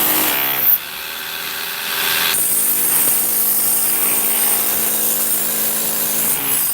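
A power tool running steadily with a constant motor whine. It eases off just under a second in, runs harder from about two and a half seconds, and stops abruptly at the end.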